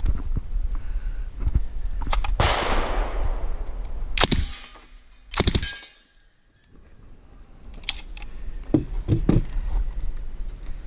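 Suppressed submachine gun firing single shots at steel targets, with a fading rush of noise about two seconds in and the loudest shots around the middle. Near the end come a few dull knocks as the gun is set down on a wooden bench.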